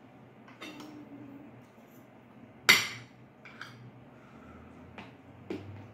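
Metal spoons clinking against ceramic bowls and plates during a meal: a handful of separate short clinks, the loudest one about halfway through.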